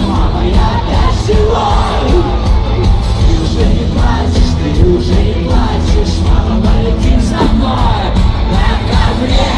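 Live rock band playing loudly through a stadium PA: drums, electric guitars and keyboards, with singing and yelling voices over the music.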